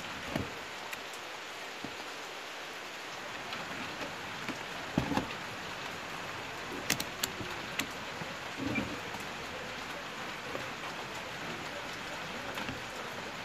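Light rain falling steadily, a continuous even patter. A few small clicks and knocks rise above it now and then.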